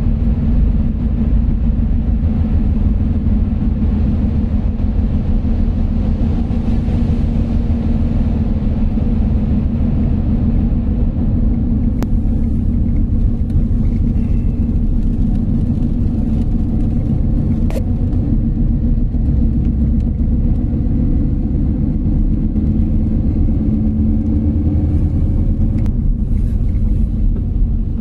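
Steady car cabin rumble from a moving car: engine and tyre noise on a wet road, heard from inside the car. Two faint clicks come midway.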